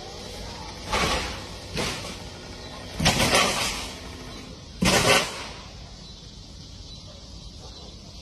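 Four loud crashing bursts over a steady background hiss. A short one comes about a second in and a weaker one follows; a longer one comes about three seconds in, and the sharpest, loudest one about five seconds in.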